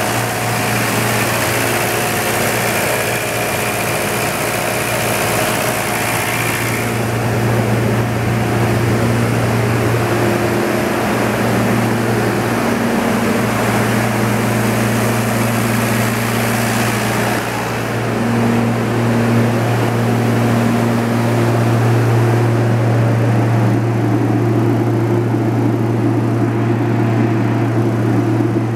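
John Deere 4045TF270 four-cylinder turbo diesel engine of a Kohler 54 kW standby generator set, running steadily at constant governed speed with a deep, even hum. The enclosure doors are open. The sound is brighter and hissier for the first seven seconds or so, then duller.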